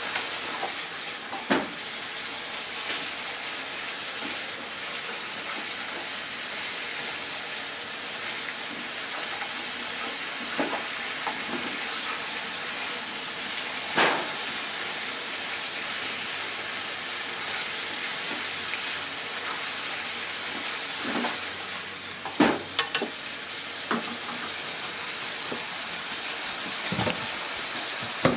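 Chicken and sliced bamboo shoots with onion sizzling steadily in a frying pan while being stir-fried, with a few sharp knocks and scrapes of the stirring utensil against the pan, the loudest about halfway through and a pair a little later.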